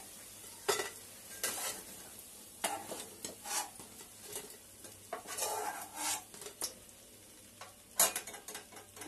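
Slotted metal spoon scraping and clinking against a metal kadhai while fried besan pakodis are lifted out of hot oil, over a light sizzle of the oil. The strokes come irregularly, with a sharp clink about eight seconds in.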